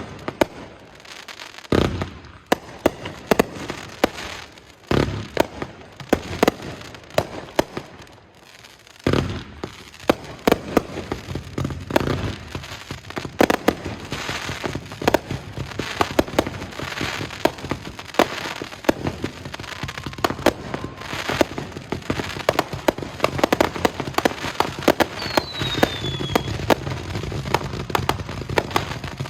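Fireworks going off in quick succession: sharp bangs and crackling. They thin out briefly about a third of the way in, then build into a dense barrage, with a short whistle falling in pitch near the end.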